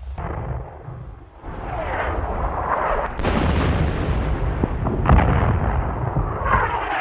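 Artillery fire and shell bursts on an old wartime film soundtrack: a heavy continuous rumble with a sharp blast about three seconds in and another hit about two seconds later.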